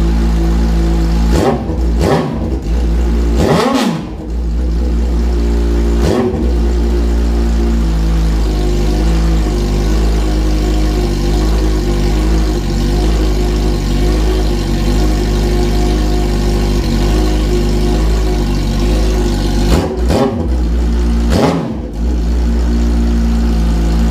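Yamaha R1 inline-four sport-bike engine running with its exhaust cut off, idling loudly and blipped to high revs about half a dozen times: a few quick revs in the first six seconds, then two more about twenty seconds in.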